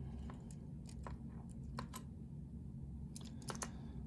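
Small, irregular metallic clicks and scrapes, a cluster of them near the end, as a shim is worked around a tightly fitting lock plug to free it for gutting. A low steady hum runs underneath.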